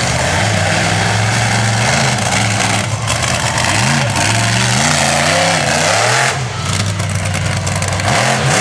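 Monster truck engine running loud on the dirt track, revved up and down several times in quick succession in the middle, then holding steady again.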